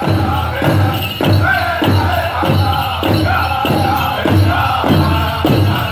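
A powwow drum group sings a chicken dance song in unison over a big drum struck evenly about twice a second.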